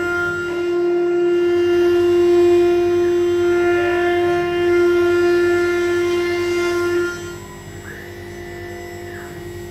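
Background music: a long held wind-instrument note over a drone, which fades about seven seconds in, followed by a quieter high tone that bends up and back down.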